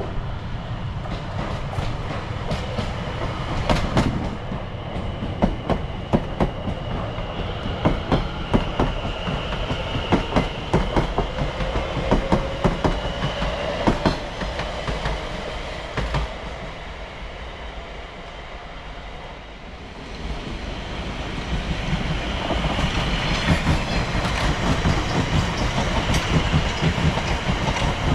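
Two London Overground Class 710 electric multiple units pass one after the other. Each makes a steady rail rumble with clickety-clack from the wheels over rail joints and a high electric whine. The sound eases into a quieter spell about two-thirds of the way in, then builds again as the second train comes through.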